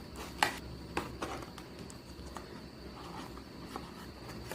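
Packaging of an earbuds box being handled during unboxing: a few light clicks and rustles, the sharpest about half a second in, then softer handling noise.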